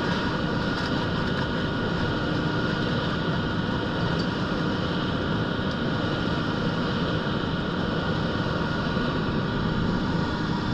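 Concrete mixer truck's diesel engine running steadily, with a constant whine over the engine noise.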